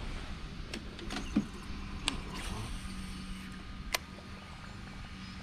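Clicks and creaks of fishing tackle being handled in a kayak, a rod and reel, with a single crisp click about four seconds in as the rod swings out for a cast. A steady low hum runs beneath.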